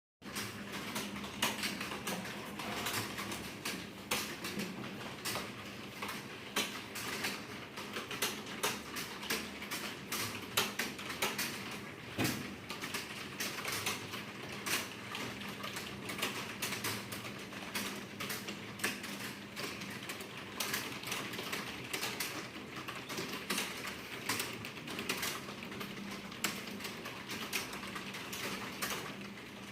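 Typing on a computer keyboard during a typing test: a fast, continuous stream of key clicks, with a faint steady hum underneath.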